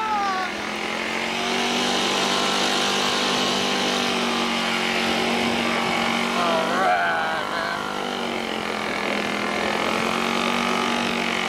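Golf cart driving across grass, its motor a steady drone under a constant hiss. A voice breaks in briefly about seven seconds in.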